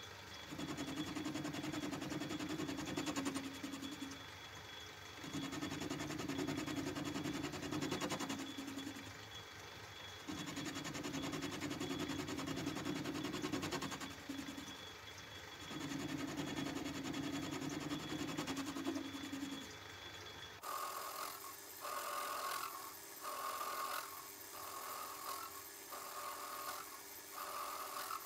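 Myford lathe running while turning an offset bar down to diameter. The steady low hum swells four times, a few seconds each. About 21 s in the sound changes abruptly to a higher, evenly pulsing sound: the same turning sped up fourfold.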